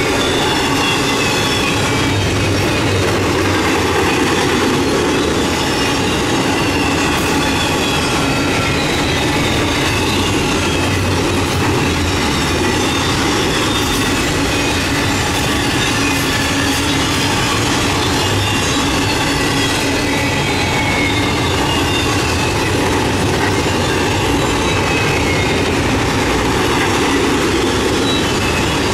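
CSX double-stack container train rolling past: a steady rumble of steel wheels on the rails, with thin high wheel squeal that drifts slightly down in pitch now and then.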